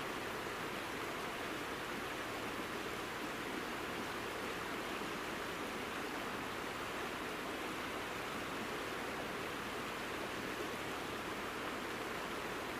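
Steady rushing of flowing water from a mountain river, an even hiss without breaks or splashes.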